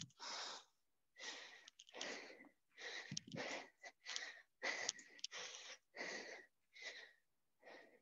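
A woman breathing hard and fast from the exertion of skater jumps, about one and a half breaths a second, with near-silent gaps between breaths.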